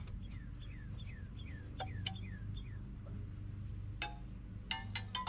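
Metal clinks of needle-nose pliers and a brake-shoe return spring against the drum brake shoes and hardware as the bottom spring is worked into place, loudest as a few ringing clicks near the end. Early on there is a quick run of about eight short falling chirps.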